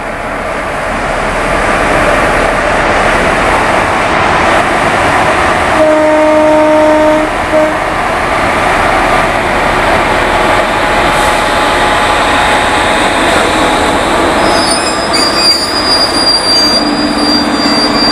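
Passenger train coaches running close by on the rails, the noise building up at first and then staying steady. A short horn blast sounds about six seconds in, and a high-pitched wheel squeal joins near the end.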